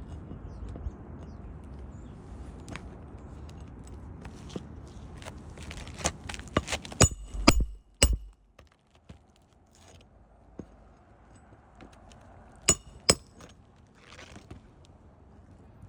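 Sharp metallic clinks and taps from metal hand tools working on asphalt roof shingles: a cluster of strikes about six to eight seconds in and two more near thirteen seconds. Wind rumbles on the microphone through the first half.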